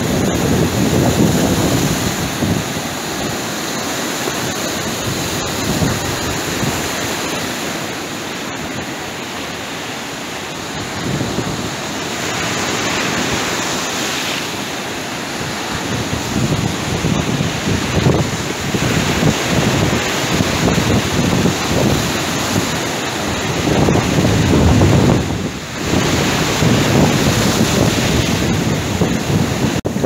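Surf breaking and washing over a stony, pebbly shore: a continuous rush that swells and eases as the waves come in, with wind buffeting the microphone.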